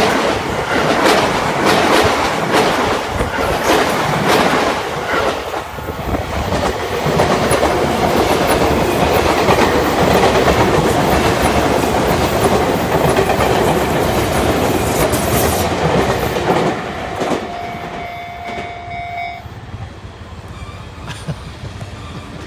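Train passing close by, its wheels clacking rhythmically over the rail joints, then running on as a steady rumble that fades away over the last few seconds.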